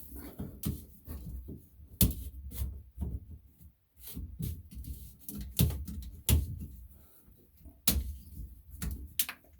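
Scattered knocks, clicks and rubbing of objects being handled, with a few sharper knocks, the first about two seconds in.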